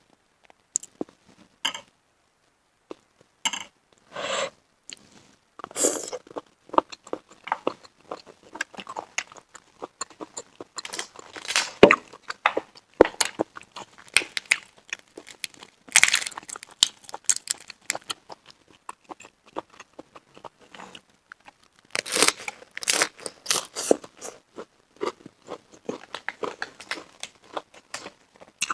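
Close-miked eating of steamed shellfish: irregular chewing, mouth smacks and crunchy clicks, with a few louder bursts of noise now and then.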